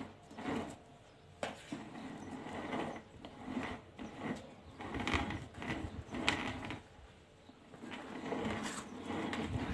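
Cake scraper scraping whipped cream on the sides of a cake as the cake turntable is turned by hand, an uneven run of scraping and rubbing with a few sharp clicks and knocks.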